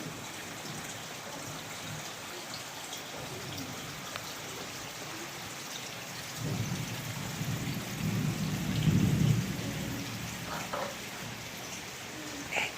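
Steady patter of falling water spattering onto water and hard surfaces, like rain. A low rumble swells past the middle, loudest about three-quarters of the way through, then fades.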